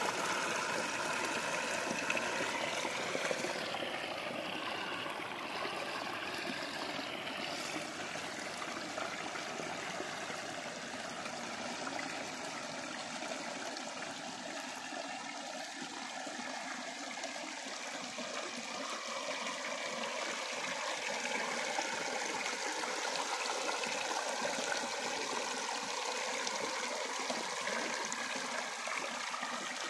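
Shallow stream water pouring over a rock ledge and splashing into the water below, a steady rushing noise.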